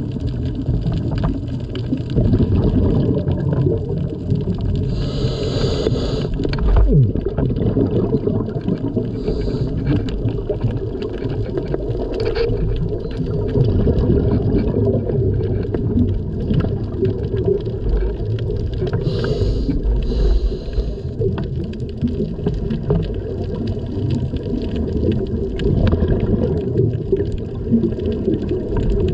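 A scuba diver's breathing heard underwater through a camera housing: a steady low rumbling gurgle of exhaled bubbles, broken by a few short hisses from the regulator on inhalation.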